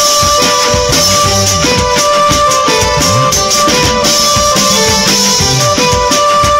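Loud music with a steady beat, a moving bass line and held high notes.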